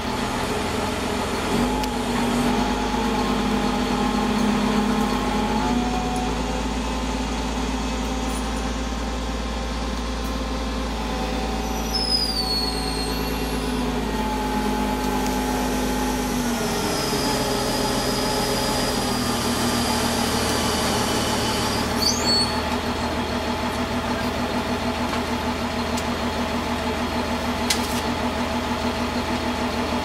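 Truck engines idling steadily, with a deeper engine running from about two seconds in until past the middle, and a couple of short high squeals.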